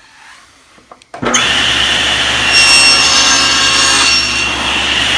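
SawStop table saw switched on about a second in and running steadily. From about two and a half to four seconds in its blade cuts across the end of a door rail, a shallow test cut for the shoulder of a tongue with the blade set a little low, then the saw runs on free.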